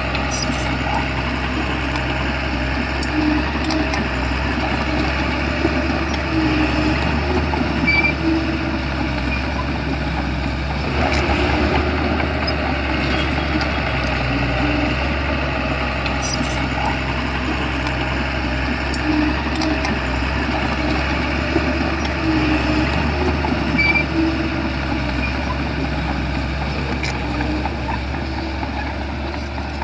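Crawler bulldozer's diesel engine running steadily at a constant low hum, with occasional faint clicks and knocks from the machine.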